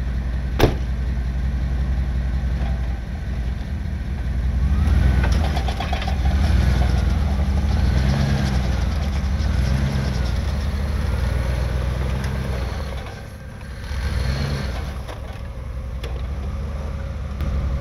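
Vehicle engines working during a snow recovery: a steady low engine drone, with the engine revving up and down in repeated swells through the middle. There is a single sharp click about half a second in.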